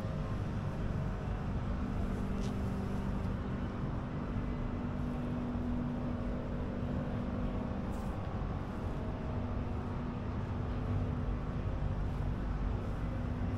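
A steady low engine hum that runs on evenly, with two faint brief ticks, one about two and a half seconds in and one about eight seconds in.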